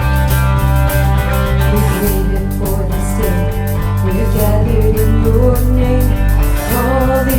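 Live band playing a song: guitar over a steady bass and drums with regular cymbal strokes. A wavering melody line comes in about two seconds in.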